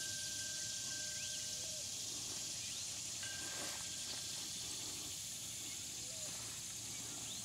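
Steady outdoor field ambience: an even high hiss, with a few faint short rising chirps and a faint steady tone that stops about two seconds in.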